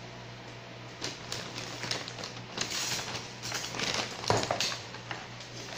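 Irregular rustling and light knocks of things being handled, with one sharper knock about four seconds in, over a steady low hum.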